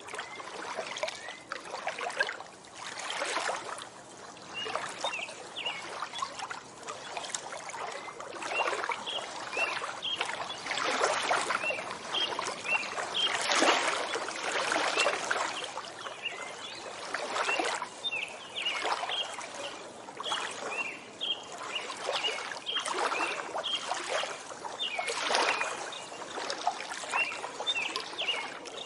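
Small waves lapping at a lakeshore in irregular swells every second or two, with songbirds chirping throughout in short high notes.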